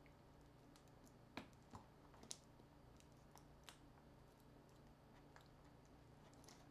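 Near silence over a faint low hum, broken by a few small, sharp clicks and ticks of fingers handling small smartphone parts during a teardown.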